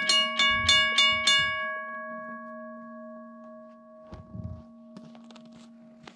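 Railroad crossing bell striking about three times a second, then stopping about a second and a half in, its ring dying away slowly as the crossing signal ends its cycle and the gate lifts. A steady low hum runs underneath, with low thuds about a second in and again after four seconds.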